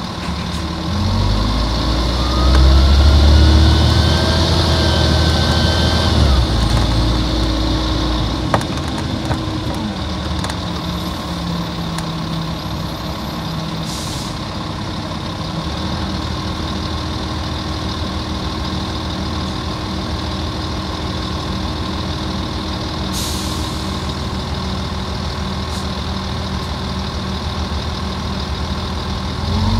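Volvo Olympian double-decker bus's Volvo D10A-245 inline-six diesel pulling away, its note climbing for several seconds, then easing off and settling into a steady low run for most of the time. There are two brief hisses, and the engine starts to climb again near the end.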